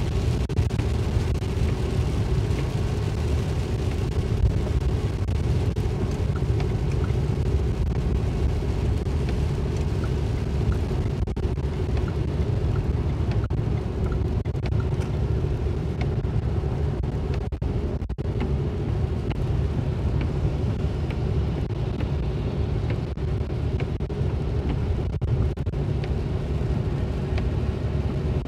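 Steady low rumble of a car driving on a wet highway, heard inside the cabin: tyres on the wet road and running noise, with a steady hum.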